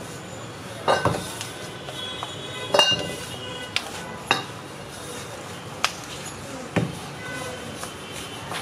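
Metal utensils and dishes clinking and knocking against each other, about half a dozen sharp strikes with a brief ring, over a steady background hum.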